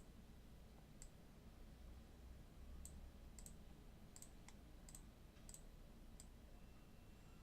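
Faint computer mouse clicks, about eight of them at irregular intervals, some in quick pairs, over a quiet room hum.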